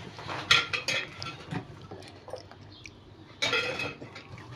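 Glass jars and kitchenware knocking and clinking as they are handled and set down, a few separate knocks in the first couple of seconds and a short louder bout of handling near the end.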